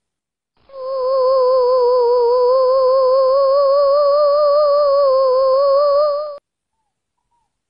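A single held tone with a fast, even vibrato, drifting slightly upward in pitch, lasting about six seconds and cutting off abruptly: a sound effect.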